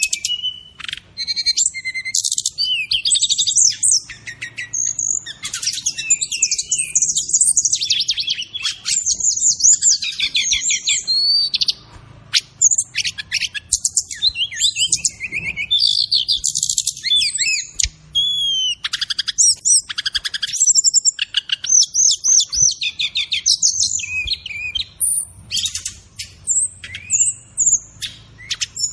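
Sikatan rimba dada coklat (brown-chested jungle flycatcher) singing a long, fast, varied song of high chirps, trills and whistles, broken by brief pauses.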